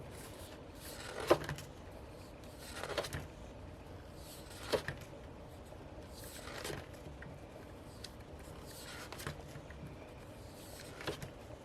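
Paper pages of a desk calendar being flipped over one at a time, a short papery swish about six times, every second or two.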